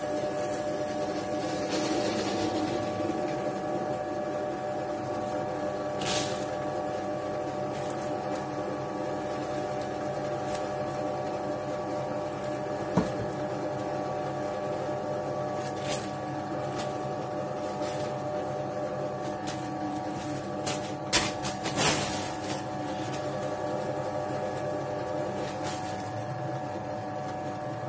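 Scheppach DP19 Vario bench drill press running steadily at a low speed of about 120 rpm, a constant motor whine with several steady tones. A few sharp clicks and knocks stand out, one about halfway through and a cluster about three-quarters of the way through.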